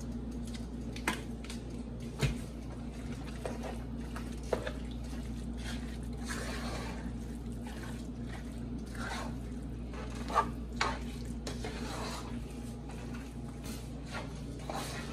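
Sour cream squeezed from a squeeze bottle, then a spoon stirring a thick, creamy broccoli and cheese casserole mixture in a pot: wet squishing with a few sharp clicks of the spoon against the pot. A steady low hum runs underneath.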